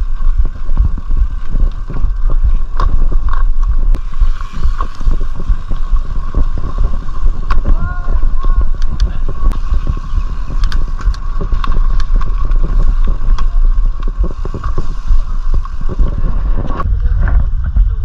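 Mountain bike ridden over a rough trail: a heavy rumble of wind buffeting the microphone, with frequent clicks and rattles from the bike and a steady high whine underneath.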